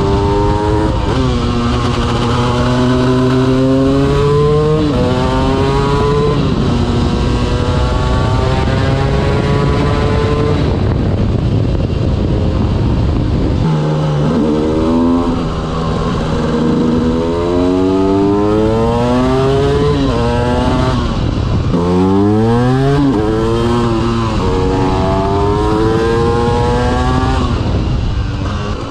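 2005 KTM EXC 250 two-stroke single-cylinder engine, ridden as a supermoto, accelerating hard through the gears: its note climbs in pitch and drops back at each shift, over and over. Partway through it goes off-throttle for a few seconds with no clear engine note, then revs up sharply and falls away before pulling through the gears again.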